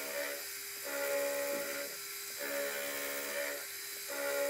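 Mini milling machine running, its end mill taking repeated light cuts along the side of a small cross head. A steady motor whine drops out and comes back about every one and a half to two seconds, alternating with a higher scraping hiss.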